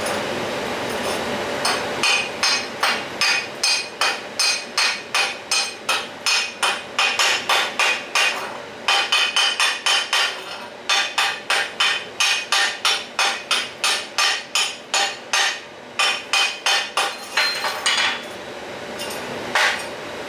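Chipping hammer striking a freshly stick-welded steel block over and over, about three sharp ringing metal-on-metal blows a second with a few short pauses, knocking the slag off the weld beads.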